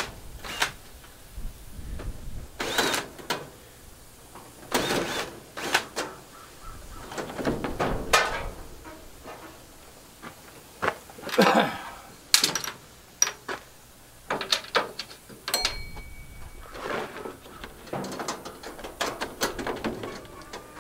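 Irregular metal clanks, rattles and scrapes from hands and tools working on the sheet-metal back of a clothes dryer, loosening the power-cord clamp and working the cord free.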